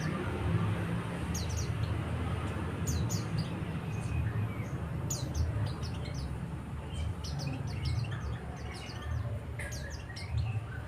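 White-eye (pleci) calling in short, high chirps, repeated at irregular intervals: a caged decoy bird calling to draw wild white-eyes in. A steady low rumble runs underneath.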